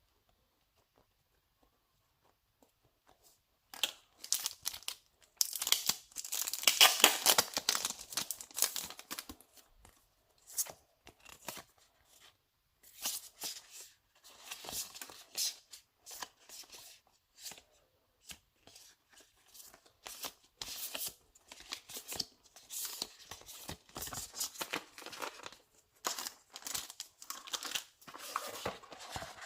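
Packaging being torn open and crinkled by hand in irregular crackling bursts, starting about four seconds in, loudest shortly after.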